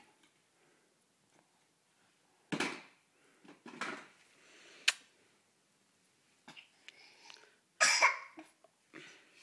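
Toys knocking and clattering as a baby handles them in a plastic toy box: scattered knocks and a sharp click, with the loudest clatter about eight seconds in.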